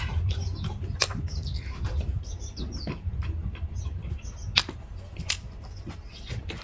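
Close-miked eating sounds: wet chewing and lip smacks in short irregular bits, with a few sharp clicks, over a low steady hum.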